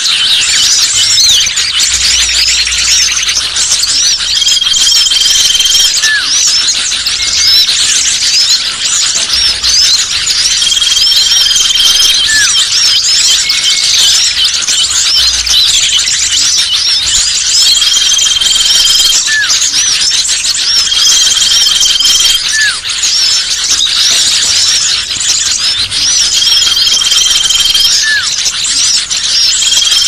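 Bird-lure recording of many small songbirds calling together in a dense, busy chorus of chirps and twitters, with a steady high whistle of about a second and a half recurring every few seconds.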